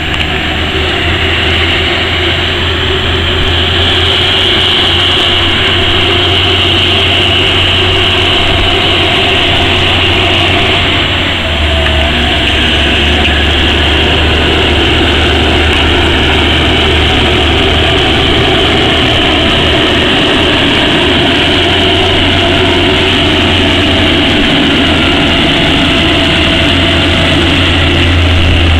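Caterpillar 777F haul truck's V12 diesel engine running steadily and loud as the truck drives past.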